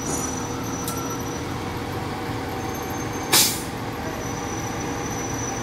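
Forklift engines running steadily, with a short, loud hiss of released air about three seconds in.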